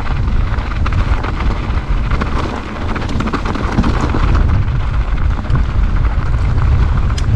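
Mountain bike riding down a rough dirt trail: wind buffeting the camera microphone in a heavy rumble, with steady clatter and rattling of the bike over the rough ground.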